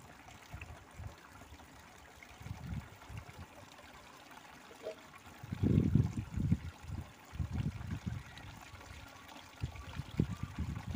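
A stream of water pouring from a pipe and splashing into a plastic tub. Irregular low rumbles come and go over it, the loudest about six seconds in.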